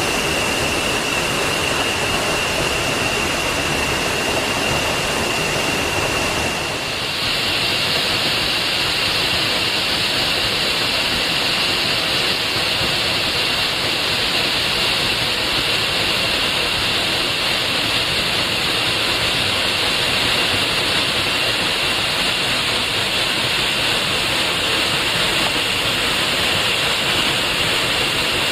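A 40 ft waterfall pouring into its pool at low dry-season flow: a steady rush of falling water. About seven seconds in it turns brighter and hissier.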